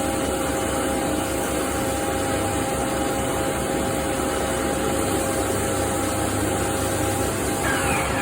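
CNC machining centre running steadily while machining an SS400 steel part, a constant mechanical hum with a steady whine; just before the end a tone falls quickly in pitch.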